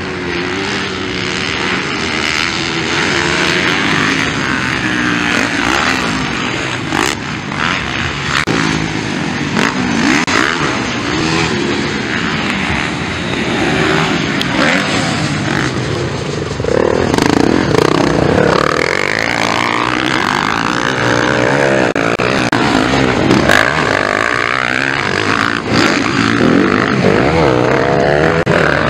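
Several motocross bikes racing on a dirt track, their engines revving up and down through the gears. About halfway through, the engines get louder and their pitch rises and falls more quickly.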